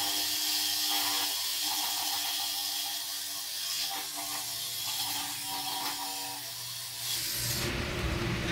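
Corded power tool running steadily as it works the bare steel floor of a Transit van during rust prep: a loud hiss over a steady whine, easing off near the end.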